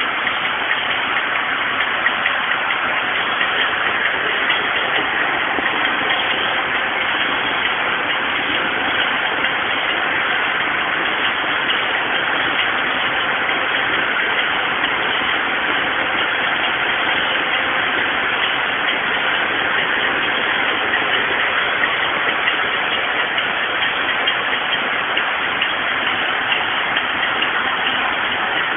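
Circular knitting machine running and knitting tubular knit fabric: a steady, even mechanical noise with faint ticks through it.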